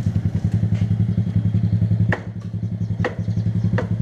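Motor scooter engine idling steadily. From about halfway in, sharp knocks come roughly once a second over it.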